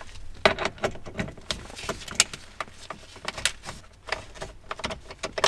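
Irregular sharp clicks and plastic knocks as a screwdriver with a long Torx T8 bit turns out a screw holding the steering column cowls together.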